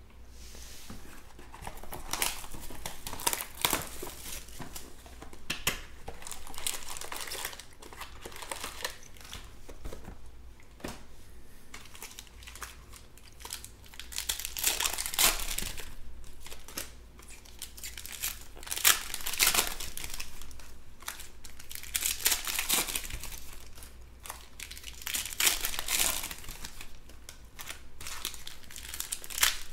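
Foil wrappers of 2020 Panini Chronicles baseball card packs crinkling and tearing as they are opened by hand, in repeated bursts, over a faint steady low hum.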